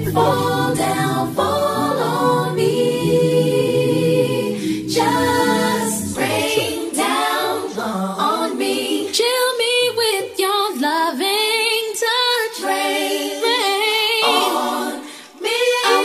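R&B music from a DJ mix. Layered singing voices run over bass and a beat for about the first six seconds, then carry on almost alone in harmony, with wavering held notes, before a brief dip in level near the end.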